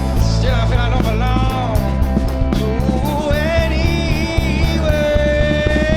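Rock band playing live, with bass and drums under a lead melody whose notes bend in pitch. The lead settles into one long held note near the end.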